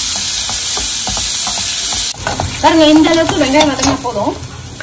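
Chopped onions sizzling in hot oil in a kadai, with a steel spoon stirring and scraping through them. About two seconds in, the sizzle suddenly drops lower and a loud, wavering pitched sound comes in over it for a couple of seconds.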